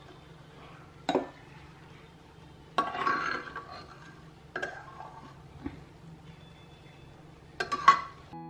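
Steel spoon clinking and scraping against an aluminium pressure cooker and a steel mixer-grinder jar as cooked porridge is scooped across: five or so separate knocks and scrapes, with a longer scrape about three seconds in and the loudest double clink near the end, over a faint steady hum.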